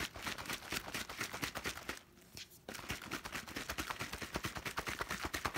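Shaker bottle being shaken hard to mix pre-workout powder into liquid: rapid, even rattling knocks, with a brief pause about two seconds in.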